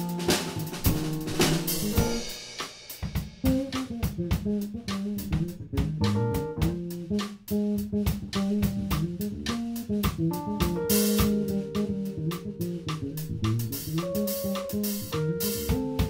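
Small live band playing an instrumental tune: drum kit, electric guitar and keyboard, with a bass line underneath. The playing thins out briefly about two seconds in, then the full groove picks up again.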